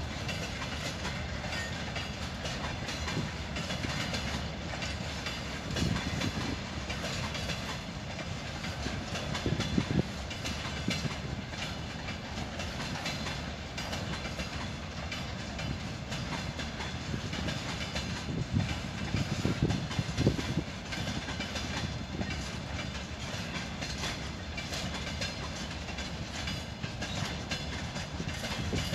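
Open freight wagons of a long freight train rolling past, their wheels rumbling and clattering on the rails in a steady run, with a few louder knocks.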